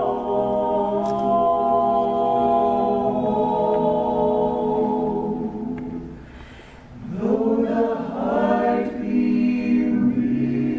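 Mixed-voice a cappella ensemble of eight men and women singing sustained chords in close harmony. About six seconds in the voices fall away for a breath, then come back in on a swelling chord.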